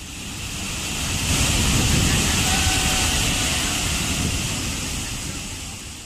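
Waterfall: the steady rush of falling water, fading in at the start and fading out near the end.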